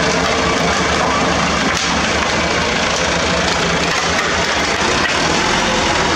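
A truck engine running steadily at idle.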